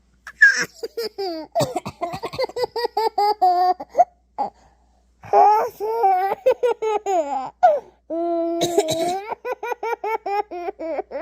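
Baby laughing hysterically in three long runs of rapid, high-pitched ha-ha pulses, about five a second, set off by a playful cough.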